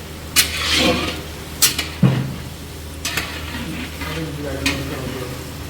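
Bay leaves and cumin seeds sizzling in hot oil in a pan while being stirred, with a utensil knocking against the pan several times.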